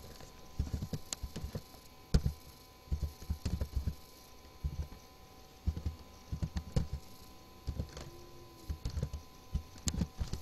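Computer keyboard being typed on: short, irregular bursts of keystrokes.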